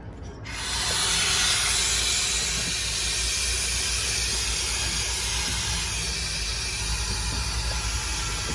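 Compressed air hissing steadily through a truck's air suspension line as a rubber air spring is filled, starting suddenly about half a second in, over a steady low hum.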